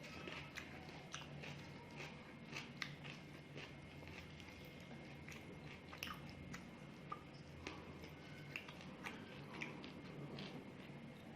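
Close-up eating sounds of a person chewing a meal of paratha, egg, salad and dahi: wet chewing with irregular crisp crunches and mouth clicks, sometimes several a second.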